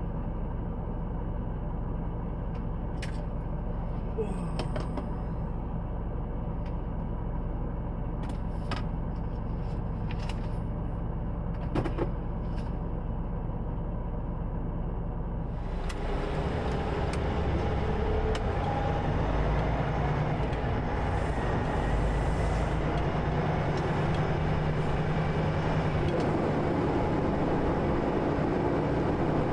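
Semi truck running with a steady low drone, with a few sharp clicks in the first half. About halfway through it turns louder, with a wider hiss added.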